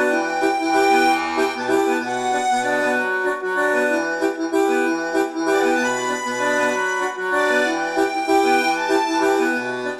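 Instrumental background music: held chords over a repeating bass line.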